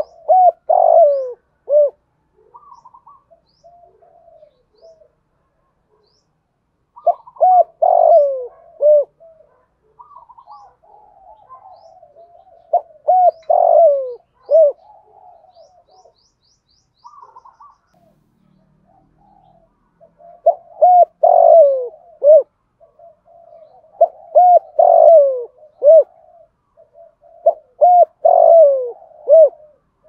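Male spotted dove cooing: about six loud crooning phrases of several notes each, a few seconds apart, with softer rapid cooing between them.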